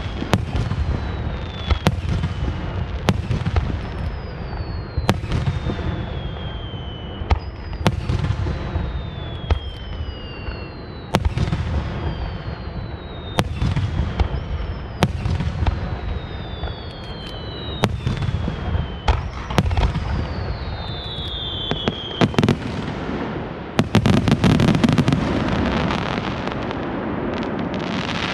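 Aerial firework shells bursting in a steady series, about one sharp bang a second. Each bang is followed by a descending whistle. Near the end comes a dense flurry of many bursts over a continuous crackle and rumble.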